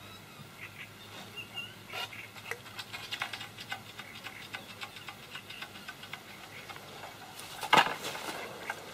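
Scattered light clicks and rustles of dry reed stems and fishing tackle being handled while a hook is baited, with a louder rustle near the end as a fishing rod is swung out over the water.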